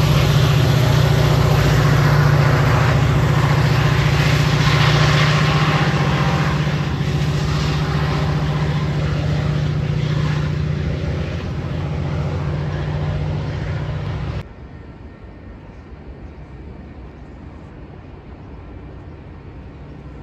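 Metra EMD F40PH diesel locomotive's engine running under load as it pushes a commuter train away, a steady low drone that slowly fades. About fourteen seconds in, the sound cuts off abruptly to a much quieter outdoor background.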